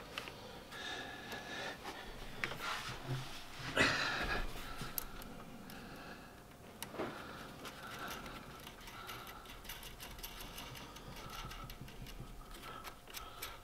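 Faint clicks, rattles and a scrape of steel brake cables and a small clamp bracket being handled and fed into place, with the loudest scrape about four seconds in.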